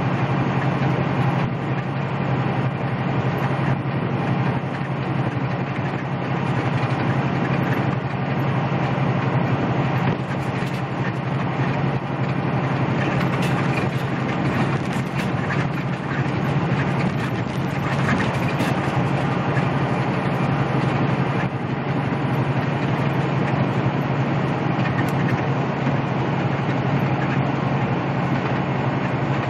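A semi-truck's diesel engine and tyres droning steadily at highway speed on a wet road, heard from inside the cab, with a constant low hum. For a stretch in the middle there is added hissing spray and the swish of the windshield wiper.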